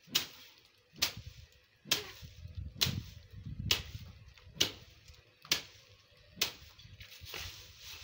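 A long stick beating a pile of dried bean plants to thresh the beans from their pods: eight sharp strikes, a little under a second apart, stopping about six and a half seconds in, then a softer rustle of the dry stalks.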